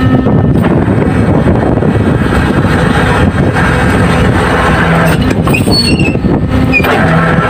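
Loud, steady running of fishing boats' engines and deck machinery, with a low hum that comes and goes.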